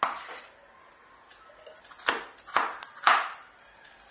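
Kitchen knife chopping on a wooden cutting board: one sharp knock at the start, then a quick run of about four knocks with a brief ring after each, two to three seconds in.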